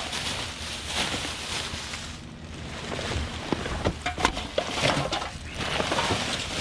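Rummaging through dumpster trash: rustling, with a run of small knocks and clicks in the middle as items are shifted and handled, over a steady background hiss.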